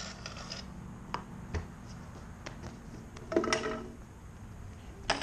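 Kick scooter landing and grinding on concrete: a few sharp clacks, then a louder scraping clatter with a metallic ring about three seconds in, and another clatter at the very end, over a steady low hum.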